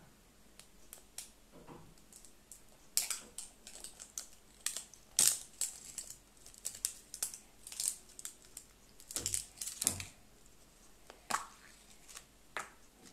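Plastic surprise egg being picked at and pulled open by hand: irregular crinkling and sharp little plastic clicks and snaps, the loudest about five seconds in and again around nine to ten seconds.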